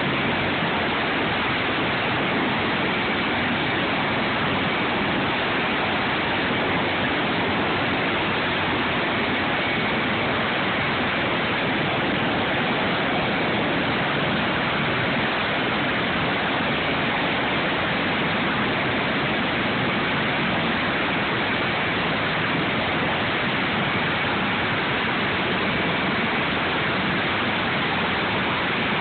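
Sikorsky MH-53E Sea Dragon's three turboshaft engines and rotor running on the ground: a loud, steady rush of noise with a faint high whine held throughout.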